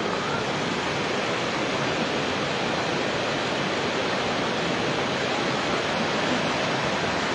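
Kushiyara river floodwater pouring across a paved road in a strong current: a steady, loud rush of churning water.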